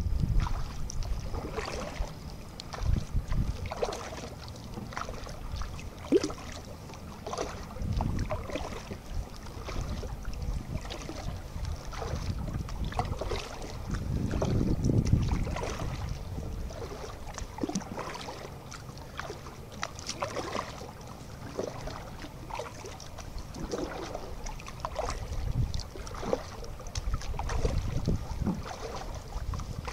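Kayak being paddled on calm canal water: irregular small splashes and knocks from the paddle and hull, with a low rumble of wind on the microphone.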